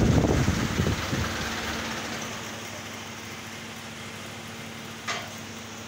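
Fiat 640 tractor's diesel engine running, loud at first and fading over the first two seconds to a low steady drone. A single sharp click about five seconds in.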